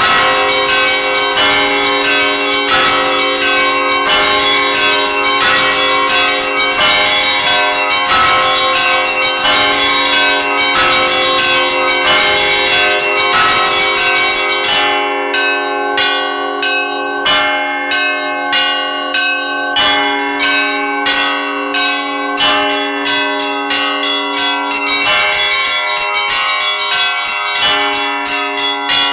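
Orthodox church bells rung together in a dense, continuous peal over the hum of the larger bells. About halfway through, the small high bells fall silent and separate strikes ring out more slowly. The full dense peal returns near the end.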